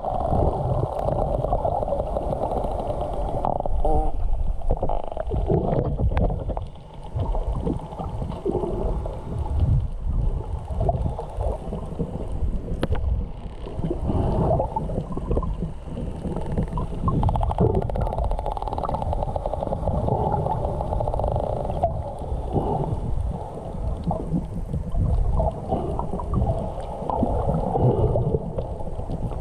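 Muffled underwater sound picked up by a swimmer's camera: water rushing and gurgling, with wild dolphins clicking and calling.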